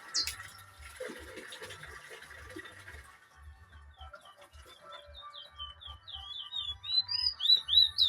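Songbird singing: quick high chirping notes begin a few seconds in and build into a loud run of rising and falling whistled notes near the end.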